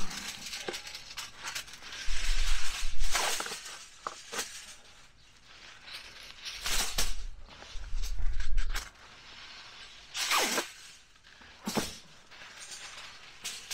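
Aluminium foil from a wide foodservice roll crackling and crinkling in irregular bursts as sheets are pulled out, torn off and spread flat, with a few sharp clicks.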